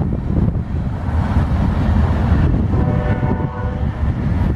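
CSX diesel freight locomotive rumbling past, with one blast of its air horn about two and a half seconds in, lasting about a second.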